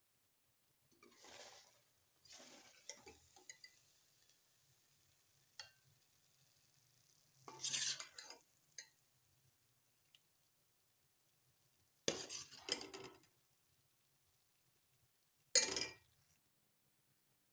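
A metal ladle scraping and clinking against a stainless steel pot as thick spinach and potato curry is dished out into a bowl. It comes in about five short bursts with quiet between them.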